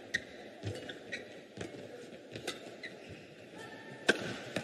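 Badminton rally: sharp hits of rackets on the shuttlecock, a few strikes a second at first, with short squeaks of shoes on the court mat. The loudest hit, an overhead smash, comes about four seconds in.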